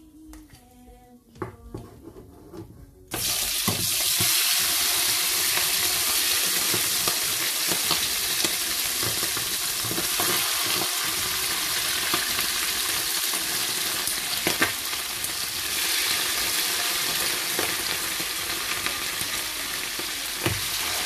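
Chicken pieces frying in hot oil in a non-stick frying pan: the sizzling starts suddenly about three seconds in as the meat goes into the pan, then carries on steadily while a wooden spoon stirs, with a few light knocks of the spoon.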